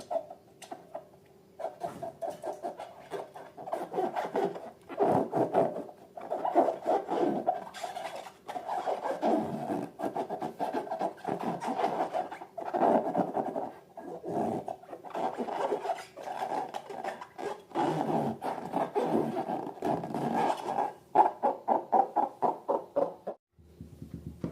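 Slime being squished and worked by hand: a dense run of sticky, crackling squelches that comes in uneven waves and cuts off abruptly near the end.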